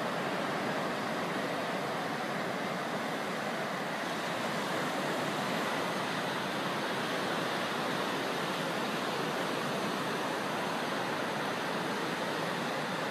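Sea waves breaking on a sandy beach, heard as a steady, even wash of surf.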